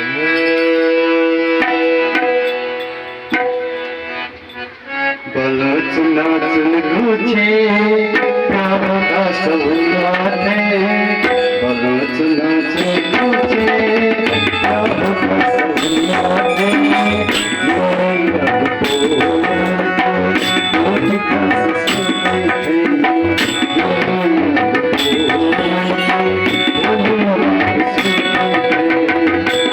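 Devotional bhajan music with tabla. Held chords sound alone for about the first five seconds, then the tabla comes in with a steady rhythm, and a bright metallic tick recurs on regular beats.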